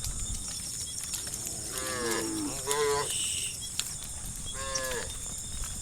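Cows mooing: two short moos in quick succession about two seconds in, falling in pitch, and another short moo near the end.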